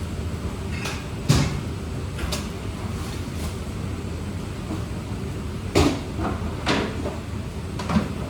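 Five sharp knocks and clunks, as of hard objects or cabinet doors being handled and set down, over a steady background noise. The loudest come about a second in and near six seconds.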